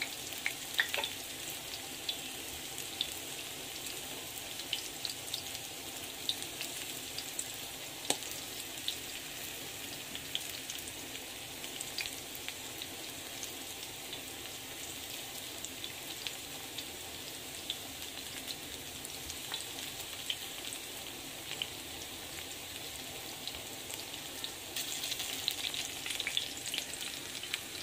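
Corn fritters frying in shallow hot oil in an enamelled cast-iron skillet: a steady sizzle with scattered small pops and crackles, swelling louder for a couple of seconds near the end.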